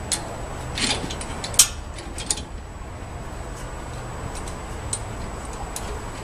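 Several sharp metal clicks and clanks in the first couple of seconds, the loudest about a second and a half in, as a SuperSprings helper-spring shackle and its hardware are handled and fitted at a truck's rear leaf spring. A low steady hum runs underneath.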